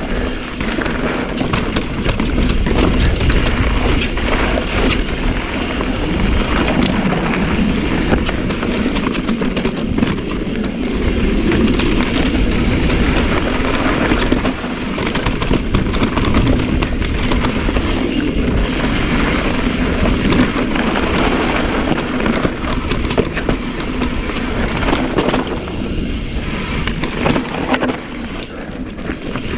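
Mountain bike descending a gravel and sandy-dirt trail: wind rumbling on the onboard microphone, tyres rolling over loose ground, and the chain and frame rattling over bumps. It eases off somewhat near the end.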